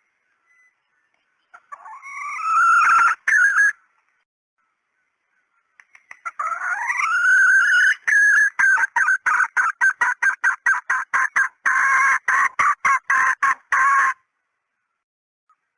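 Female junglefowl (hen) calls of the kind used as a decoy to lure junglefowl: a short rising call about two seconds in, then a longer call from about six seconds that rises and breaks into a fast run of clucks, stopping about fourteen seconds in.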